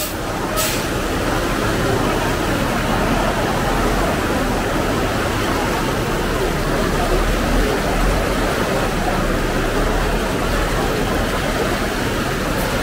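Steady rush of fast-flowing muddy floodwater, with a crowd talking in the background. A couple of brief sharp clicks sound about half a second in and near the end.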